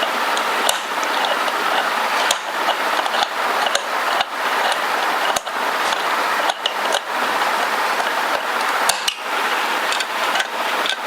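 A handle being screwed onto a pressure cooker lid: scattered sharp clicks and knocks of the tool and handle against the metal lid, over a steady hiss.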